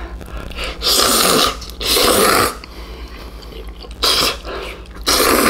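A person slurping noodles from a bowl, four loud, noisy slurps with short pauses between them.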